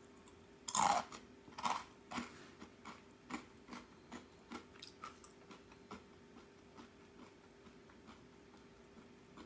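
A crisp arare rice cracker bitten with a loud crunch a little under a second in, then chewed with a run of smaller crunches, about two a second, that fade away over the next several seconds.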